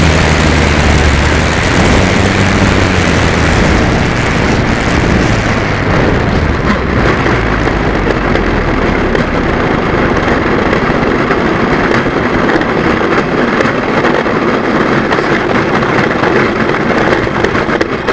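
Wind rushing over the microphone of a camera mounted on an RC Cessna 150 in flight, a loud steady rush of noise. The electric motor's hum dies away in the first couple of seconds, leaving mostly air noise, which loses some of its hiss after about four seconds.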